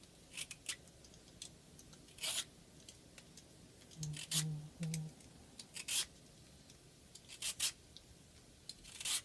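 Vegetable peeler shaving thin strips off a peeled daikon radish: short rasping strokes, one every second or so.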